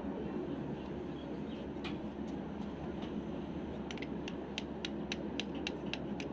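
Light metallic clicks and taps of a flat steel bar levering against the shift forks and gears of a Mahindra Bolero Maxitruck gearbox, a few at first and then a quick run of about three or four a second near the end, over a steady low background hum.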